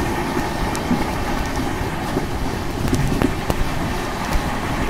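Bharat Gaurav tourist train running along the track at speed, heard from beside the coach: a steady rumble with scattered sharp clicks from the wheels on the rails.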